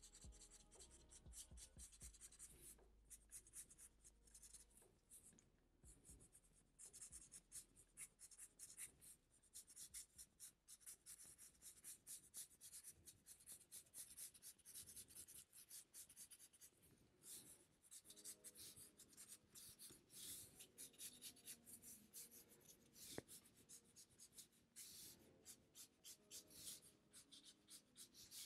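Faint felt-tip marker scratching across paper in many quick short strokes, the sound of hatching and movement lines being drawn.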